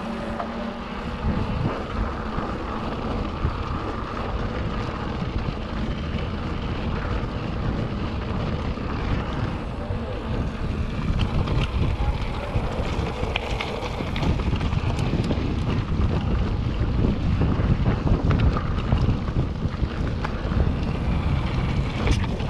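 Wind buffeting a camera microphone while riding a mountain bike, a steady rushing noise, with scattered sharp clicks and knocks that grow more frequent in the second half.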